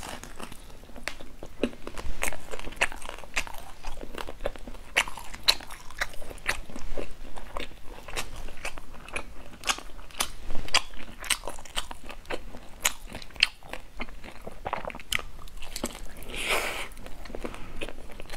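Close-miked biting and chewing of a crisp fried kaolengmian (grilled cold-noodle sheet) topped with sesame: irregular crisp crunches, several a second.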